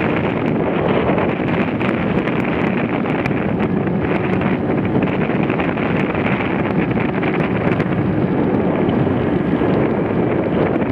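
Loud, steady wind noise buffeting the microphone of a camera mounted on a jet ski running at speed, with the watercraft's engine and water spray blended into the rush.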